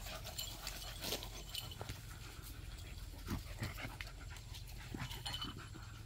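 Beagles panting as they play-wrestle on grass, with scattered faint scuffs and rustles from their paws and bodies.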